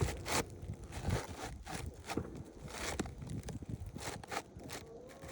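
Owens Corning laminate asphalt shingle being slid into place on the roof: irregular scraping and rustling with light knocks and clicks.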